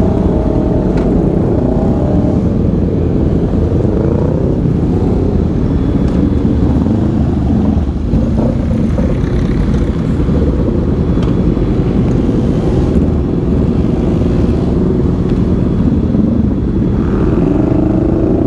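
Several Honda CBR500R parallel-twin motorcycles idling together, with the engine pitch rising and falling near the start and again near the end as bikes are revved.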